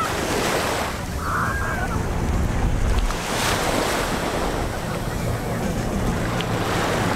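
Small sea waves breaking and washing up a sandy shore, with wind buffeting the microphone.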